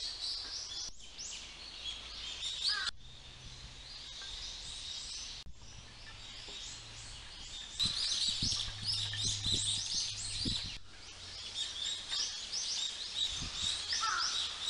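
Many small birds chirping busily and continuously in the trees.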